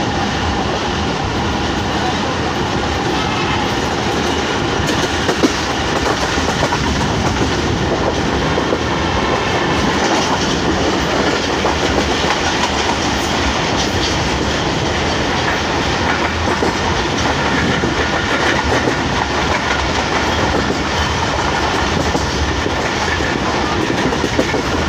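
Subak Raftar Express railcar running along the track, a steady train noise, with one brief sharp knock about five and a half seconds in.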